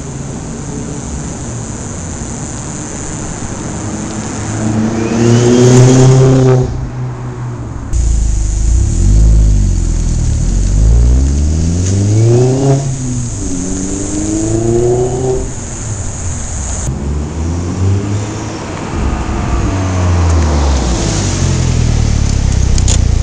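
Turbocharged 1.8-litre four-cylinder of a MKIV Volkswagen Jetta GLI, breathing through a 3-inch turbo-back exhaust, accelerating hard in a take-off. Its note climbs in pitch, drops at each gear change and climbs again, over several separate runs with abrupt cuts between them.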